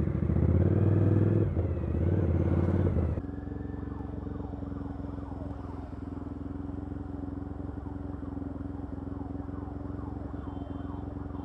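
Motorcycle engine running under way, with wind and traffic noise, for the first few seconds; after a sudden change about three seconds in, a motorcycle engine idling steadily at a standstill.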